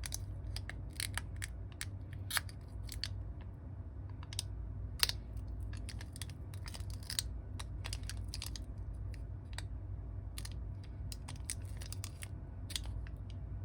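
Irregular small clicks and taps of hand tools on a smartphone being opened for repair, over a steady low hum.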